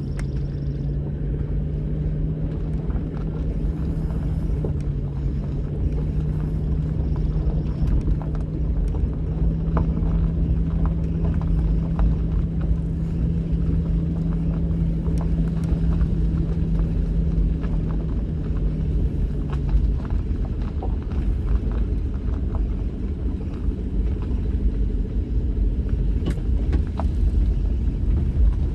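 A vehicle driving on a back road: a steady low engine and road rumble, with a held engine hum that fades out about twenty seconds in and scattered small clicks and ticks throughout.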